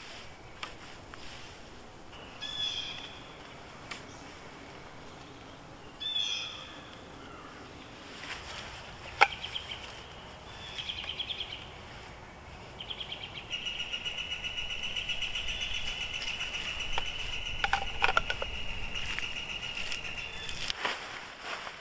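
Wild birds calling: a few short chirping calls, then a long steady trill through the second half. A sharp click about nine seconds in and a few more clicks near the end come from gear being handled.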